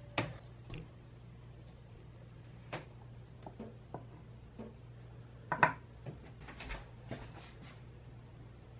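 A series of scattered light taps and knocks from handling dough in a glass bowl, then from a metal spoon tapping bread flour out onto a wooden board. The sharpest knock comes about five and a half seconds in, with a low steady hum underneath.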